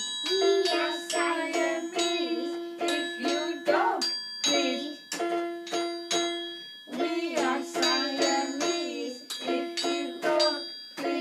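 Homemade children's music: notes played on a plastic toy keyboard, with a struck metal percussion instrument ringing high over them and a voice singing along.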